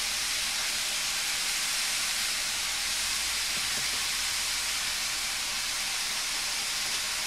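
Cubed chicken sautéing in butter and olive oil in a skillet: a steady sizzle.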